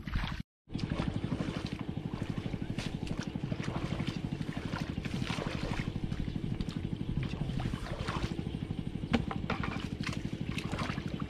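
A small engine running steadily with a fast, even throb, cutting out completely for a moment about half a second in. Over it come irregular splashes and squelches of bare feet wading through shallow muddy water.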